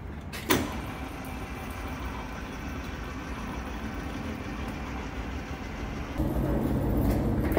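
Steady workshop machine noise, starting with a sharp click about half a second in. A louder low hum joins near the end.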